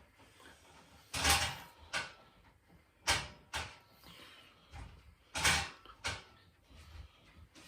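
A series of short scraping and knocking noises, about seven in all at an uneven pace, like tools or materials being handled during repair work.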